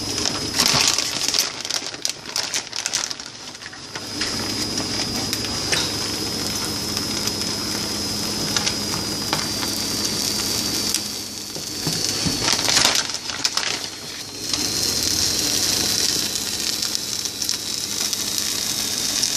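Eggs frying in a skillet under a layer of shredded cheese: a steady sizzle, with bursts of crinkling and clattering from handling in the first few seconds and again about two-thirds of the way through.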